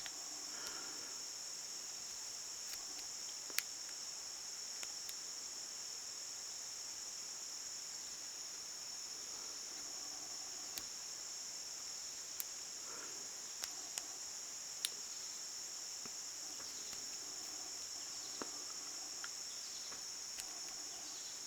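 Faint, scattered small clicks of a lock pick and tension wrench working the security pins of a Brinks padlock, one pin at a time, over a steady high-pitched insect drone.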